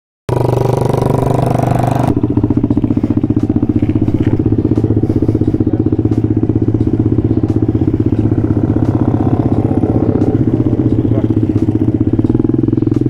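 125cc pit bike's single-cylinder engine running at fairly steady revs as it is ridden, heard from on board with an even pulsing beat. A hiss over the engine in the first two seconds stops abruptly.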